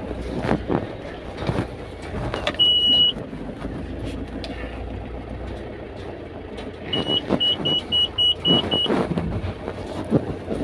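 Mahindra Bolero pickup running on the road, heard from inside the cab as steady engine and road noise, with rustles and knocks from handling the phone. About three seconds in, one long high electronic beep sounds, and a quick run of short beeps at the same pitch follows a few seconds later, about four a second.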